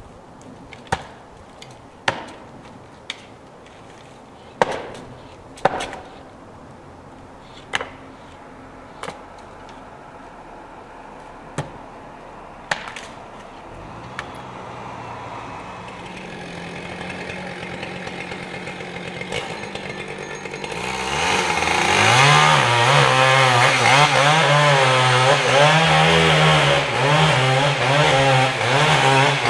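About ten sharp, separate axe blows against a large red fir snag during the first half. Then a chainsaw starts running, idling low, and from about 21 s it runs at full throttle and cuts into the trunk, its pitch wavering under load.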